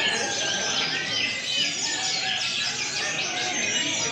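Many caged brown-chested jungle flycatchers (SRDC) singing at once: a dense, unbroken chorus of overlapping high chirps, whistles and trills, the contest-pitch sound used to provoke a pet SRDC into song.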